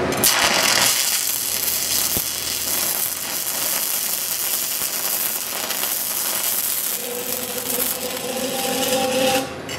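Stick welding arc crackling and hissing steadily as a root bead is run in a pipe bevel. It cuts off abruptly near the end, which fits the welder losing his ground connection.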